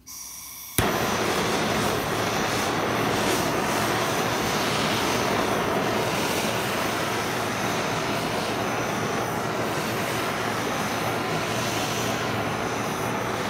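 Handheld blowtorch lit with a sharp click about a second in, then its flame hissing steadily as it is played over shellac on a wax painting.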